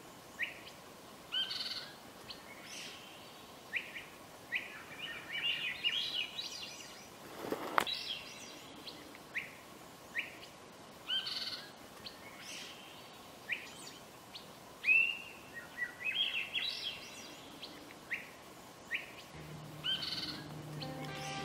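Wild birds chirping: short, high call notes about once a second, with a few longer warbled phrases between them. There is a single sharp click about a third of the way through, and music begins near the end.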